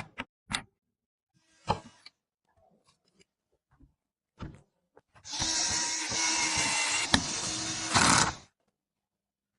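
A few separate clicks and knocks of parts being handled, then about three seconds of continuous rasping noise with a faint steady hum under it and one sharp click, cutting off abruptly.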